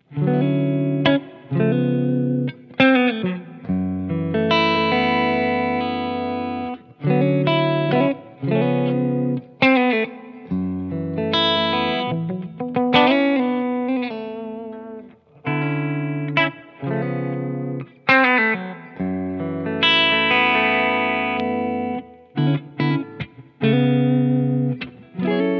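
Umeda UST QM24 electric guitar played on a clean tone: chords struck and left to ring, with picked single-note fills between them. It is heard first on the neck and bridge pickups together, then on the neck pickup alone.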